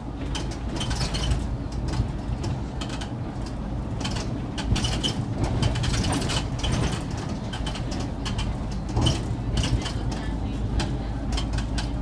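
Inside an SOR NB city bus under way: a steady engine drone and road noise, with frequent clicks and rattles from the cabin fittings.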